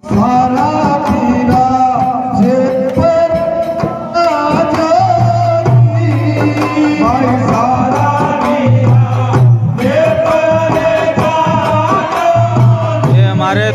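Rajasthani Holi dhamal folk song: a voice sings long, wavering melodic lines over the beat of chang frame drums.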